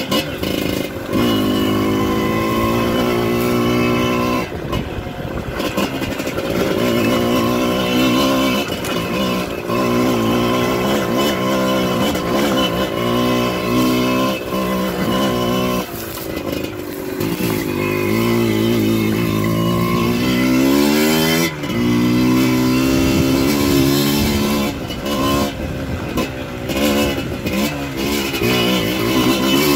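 Off-road dirt bike engine under way, its revs climbing and falling again and again as the throttle opens and closes, with a few sudden drops in pitch.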